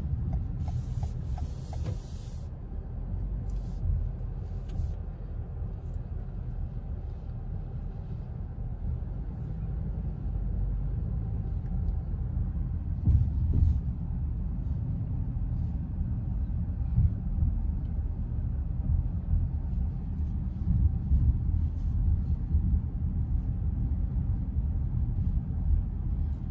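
Steady low rumble of road and engine noise inside the cabin of a 2020 Toyota Corolla being driven, with a short burst of hiss about a second in and a few faint clicks.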